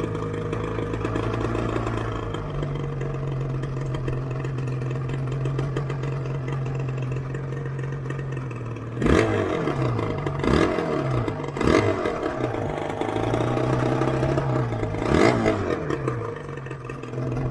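Yamaha RZV500R two-stroke V4 engine idling steadily, then revved sharply four times in quick blips, each rising and falling back to idle.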